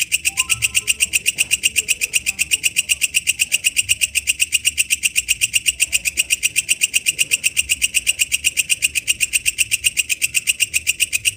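Walang kecek bush cricket singing: a steady train of rapid, evenly spaced high-pitched pulses.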